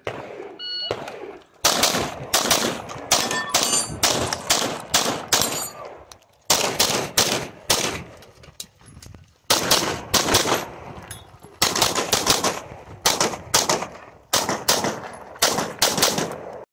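Handgun fired in quick pairs and short strings with pauses between them, about a dozen bursts in all. The first shots come about a second and a half in, just after a short electronic shot-timer start beep.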